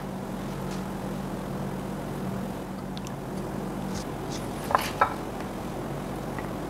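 Serving spoon spooning diced potato hash onto a ceramic plate, with two light knocks of the spoon about five seconds in, over a steady low hum.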